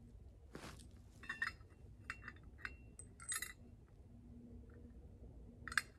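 Small steel hardware clinking against a steel ground anchor's hex head as it is handled by hand: about half a dozen short, ringing metallic clinks, one of the loudest near the end.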